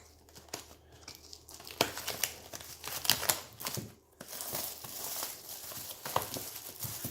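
A sealed trading-card hobby box being opened by hand: its plastic wrap crinkling and tearing, with sharp crackles and snaps that come thicker from about two seconds in.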